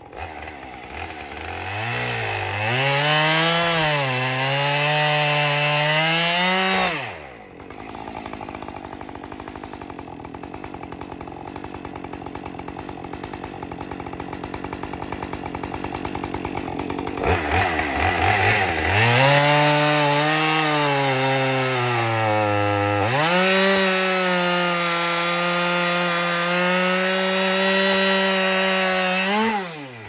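Chainsaw cutting through a large log at full throttle, its pitch dipping and recovering as the chain bogs in the wood. About seven seconds in it drops to a low idle for about ten seconds, then revs up and cuts again, letting off just before the end.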